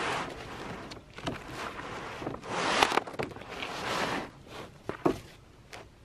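Gloved hands sliding and smoothing a sheet of black roofing underlayment over an OSB roof deck: a run of rustling swishes with a few sharp taps, the loudest about three seconds in and another about five seconds in.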